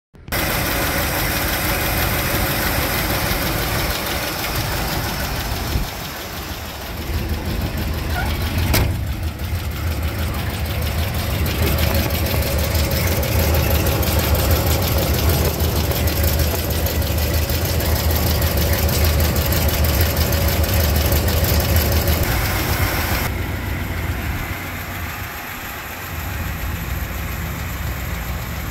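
The freshly rebuilt engine of a 1979 Chevrolet Monte Carlo running at idle on fresh oil, a steady low running note that swells and eases a little, being checked for oil leaks around the new filter and drain plug.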